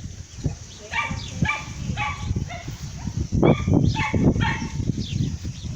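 A run of short, pitched animal calls, about two a second, in two bursts, over a steady low rumble.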